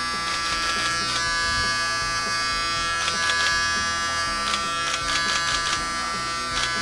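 Cordless electric hair clippers buzzing steadily as they cut through hair on a person's head, with background music.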